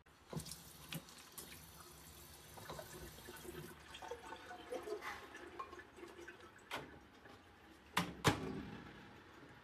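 Tap water running into a plastic container at a stainless-steel kitchen sink, followed by a few sharp knocks; the loudest, about eight seconds in, is the microwave oven's door being worked.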